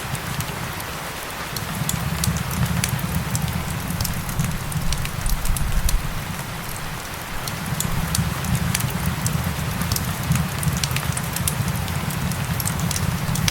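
Steady rain with the scattered snaps and pops of a crackling wood fire, over a low rumble.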